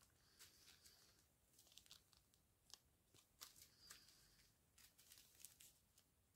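Faint crinkling of small plastic zip-lock bags of round diamond-painting drills being handled, a scatter of short soft crackles and ticks.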